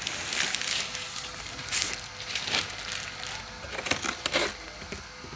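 Plastic wrapping crinkling and cardboard rustling as a plastic-wrapped backpack is pulled out of its shipping box, in a string of short crackly bursts.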